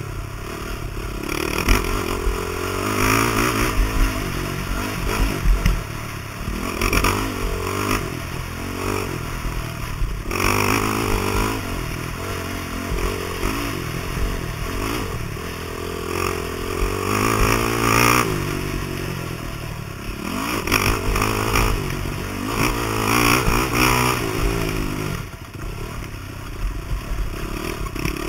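Off-road motorcycle engine being ridden hard, revving up and easing off again every couple of seconds.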